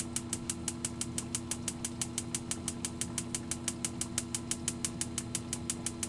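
Electronic spark igniter of an HHO gas burner snapping repeatedly, an even rapid ticking of about eight sparks a second, without lighting the gas at the nozzle. A steady low hum runs underneath.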